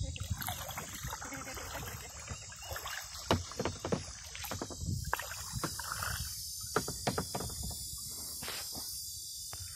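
A canoe being paddled: irregular knocks and splashes of the paddle against the hull and the water. There are several sharper knocks between about three and seven seconds in, over a steady high insect buzz.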